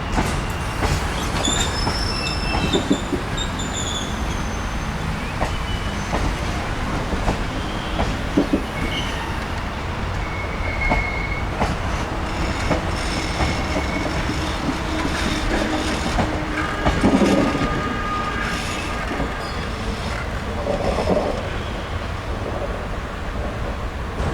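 Passenger train coaches rolling past on the track, with a steady rumble, short high-pitched wheel squeals and knocks over the rail joints. It is loudest about two-thirds of the way through.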